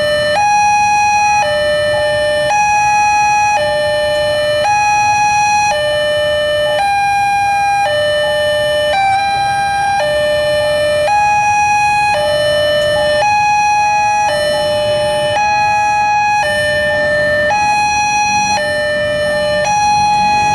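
Railway level-crossing warning alarm: an electronic two-tone chime alternating steadily between a higher and a lower note, each held about three quarters of a second, over a low rumble.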